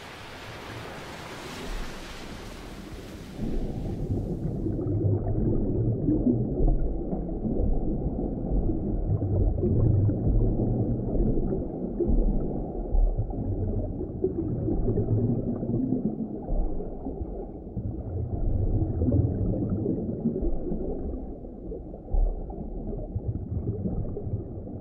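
Ocean sound effects: rushing surf noise at first, then from about three and a half seconds a muffled underwater rumble with low calls that rise and fall in pitch.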